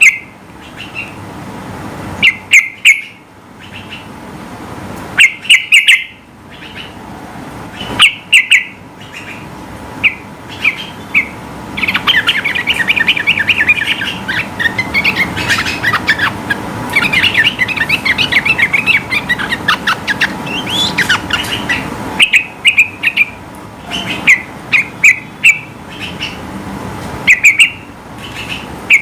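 Yellow-vented bulbul (trucukan) singing in loud short whistled phrases every second or two, with a long run of rapid chattering notes through the middle third.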